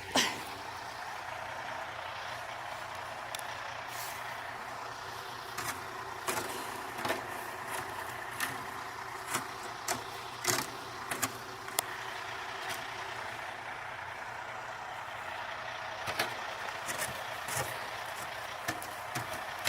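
A large vehicle's diesel engine running steadily, with irregular sharp clicks about once a second over it.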